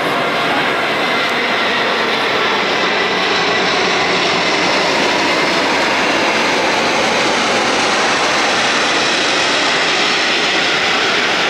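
Airbus A380 airliner flying low overhead on approach with its landing gear down, its four jet engines making a loud, steady rushing drone with a faint whine.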